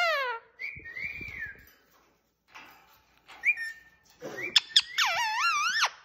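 Pet ring-necked parakeet calling and whistling: a short falling call, then a warbling whistle, a brief chirp with a held note, and near the end a long, loud call that wavers in pitch.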